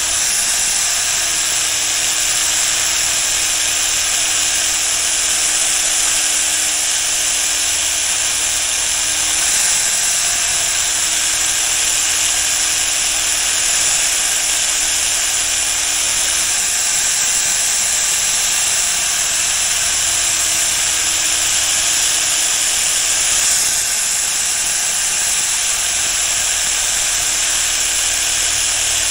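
Small electric power tool running steadily with a loud abrasive hiss as a steel shear blade is resurfaced. A low hum under it sags slightly in pitch and resets every six or seven seconds.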